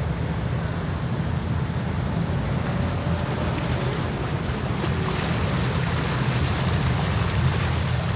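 Vehicle engine running steadily under a low rumble as it drives through mud and puddles, heard from inside the cab, with a hiss of wet tyres and water that grows louder in the second half.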